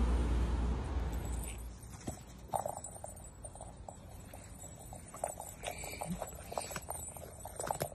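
A low rumble that fades out about a second and a half in, then irregular soft clicks and taps from a small dachshund playing with a rubber ball on grass.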